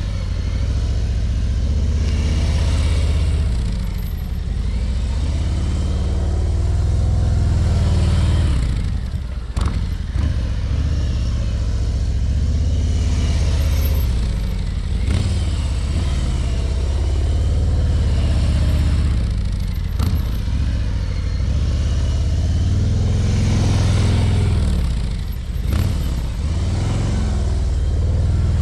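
Harley-Davidson Ultra Limited's V-twin engine running at low speed, a deep rumble that swells and fades about every five seconds as the motorcycle circles past again and again.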